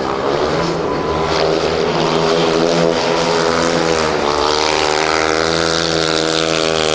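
Speedway motorcycle's single-cylinder methanol engine running hard as the bike laps the dirt track. Its pitch dips about four seconds in, through the bend, then climbs steadily as it accelerates down the straight.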